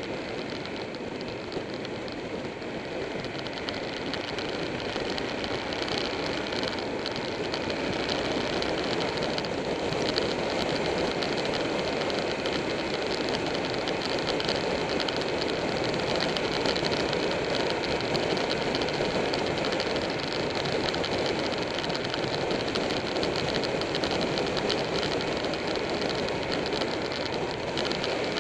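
Motorcycle riding at speed: steady wind and road noise over the running engine of a Buell 1125R V-twin, heard from a camera mounted on the bike. It grows a little louder after the first few seconds.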